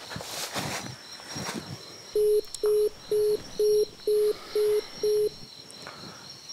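Phone call tone heard from a mobile phone held to the ear: seven short, even beeps at one pitch, about two a second. The call is not going through.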